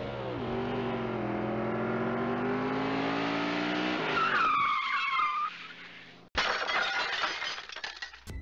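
Car crash sound effect: a car engine revving with its pitch slowly climbing, tyres squealing about four seconds in, then a sudden crash about six seconds in.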